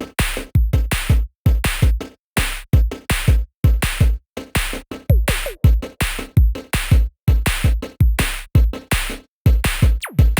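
Electronic intro music: a drum-machine beat with heavy bass kicks, about two to three hits a second, broken by short silences, with a falling synth sweep near the middle and again near the end.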